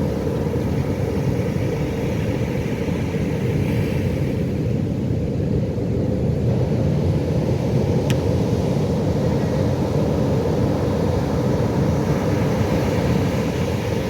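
Pacific Ocean waves breaking and washing ashore: a steady, loud, low rushing noise.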